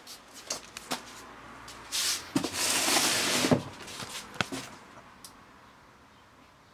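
Hard plastic clicks and knocks from handling a robot vacuum cleaner's parts, with a louder noisy stretch of about a second and a half in the middle, set off by sharp clicks.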